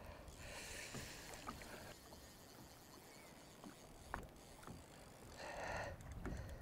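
Faint ambience aboard a small boat on a river: a low wind rumble and water noise, with a few light clicks and knocks.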